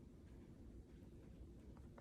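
Near silence: faint low room hum, with a couple of faint ticks near the end.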